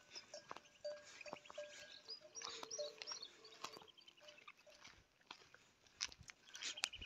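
Faint birds calling in the open scrub: short, repeated chirps and rising and falling trills, mixed with scattered crunches and clicks.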